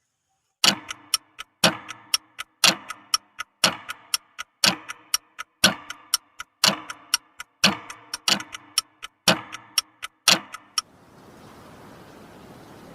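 Rhythmic ticking like a clock: a sharp tick about once a second with lighter ticks in between, stopping a couple of seconds before the end and giving way to a steady hiss.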